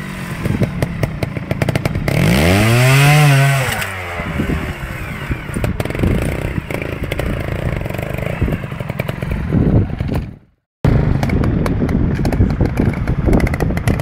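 Beta trials motorcycle engine blipping and revving as the bike picks its way up over rocks, with one strong rise and fall in revs about two to four seconds in. The sound drops out for a moment near the ten-and-a-half-second mark, then the engine runs on.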